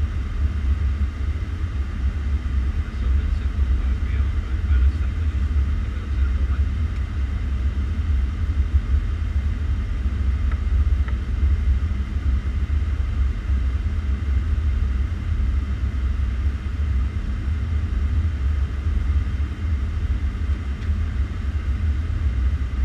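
Boeing 757 cockpit noise in flight: a steady low rumble of airflow and engines, with faint steady tones above it.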